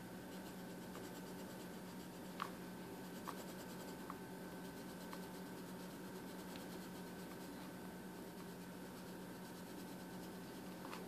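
Faint scratching of a pencil writing on a paper worksheet, with a few light clicks in the first half, over a low steady hum.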